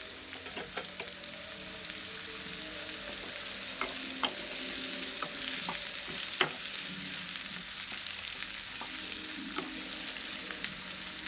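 Sliced onions and green chillies sizzling in hot oil in a nonstick kadai over a high gas flame, stirred with a wooden spatula. Steady frying hiss, with scattered sharp taps and scrapes of the spatula against the pan, the loudest about six seconds in.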